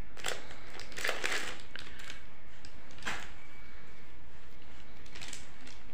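A few soft swishes of a flat makeup brush spreading a thick face pack over the skin, heard over steady low background noise.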